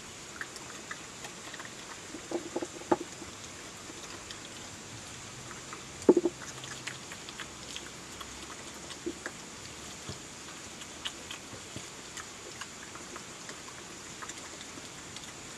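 European badger eating chips from a tray: wet chewing and crunching heard as many small scattered clicks over a steady hiss, with a cluster of louder knocks about two and a half seconds in and the loudest one at about six seconds.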